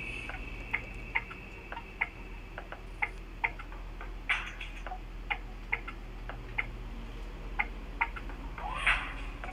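A run of sharp, unevenly spaced clicks, about two a second, with two louder swishing sounds, one about four seconds in and one near the end.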